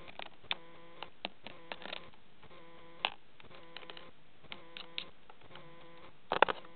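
Budgerigar pecking and scrabbling at a camera: irregular sharp clicks and taps of beak and claws, with a quick cluster of louder clicks near the end, over a faint steady hum.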